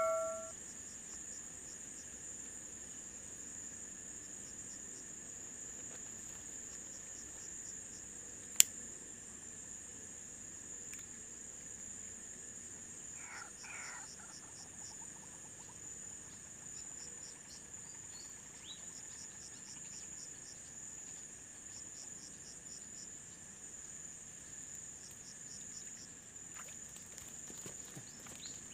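Steady high-pitched insect chorus with a fast pulsing trill, and one sharp click about nine seconds in.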